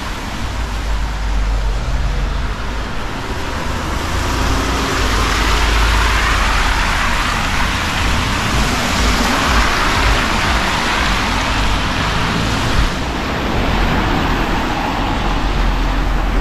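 Road traffic on a wet street: cars passing with tyres hissing on the wet tarmac over a low engine rumble. One car is loudest around the middle, and the hiss drops away sharply near the end.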